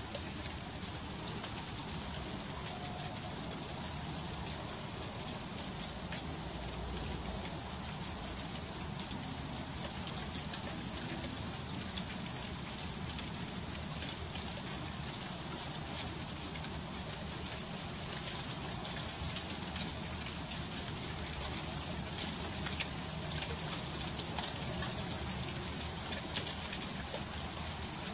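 Freezing rain falling steadily in an ice storm: a dense hiss of countless fine ticks as the drops strike surfaces.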